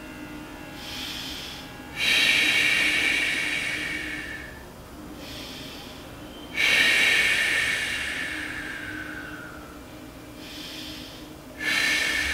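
A man breathing slowly and deeply while holding a stretch. There are three long, loud exhales, each starting suddenly and fading away over two to three seconds, with quieter inhales between them.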